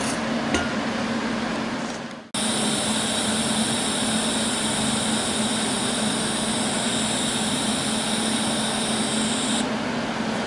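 Steady hiss of a TIG welding torch at a joint in thin steel sheet during a small tack weld, over a constant low hum. It starts abruptly about two seconds in, and its highest part drops away near the end.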